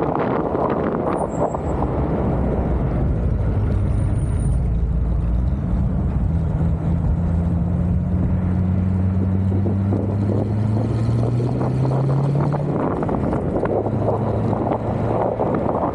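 An engine running while under way, its pitch climbing slowly for several seconds and then dropping back, with wind buffeting the microphone.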